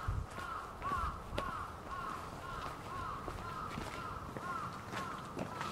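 A crow cawing over and over, a quick even series of short calls at about two or three a second.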